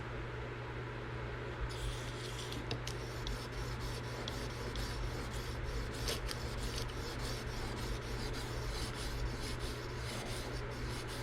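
550-grit resin-bonded diamond stone on a guided sharpening rod being drawn stroke after stroke across an M390 steel knife edge, a gritty scraping rub; the strokes begin about two seconds in. The stone is raising a burr along the edge out to the tip.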